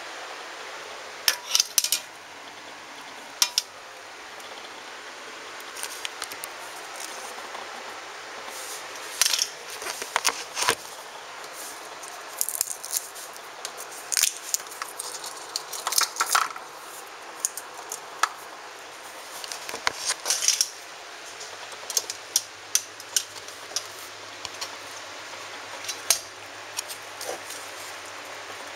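Fresh pea pods being snapped and split open by hand, with sharp irregular snaps and crackles coming every second or two, some in quick clusters.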